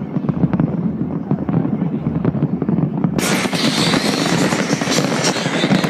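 Fireworks going off in quick succession, a dense run of low booms and bangs. A little over three seconds in, a bright hissing crackle comes in suddenly and continues, as of crackling shells.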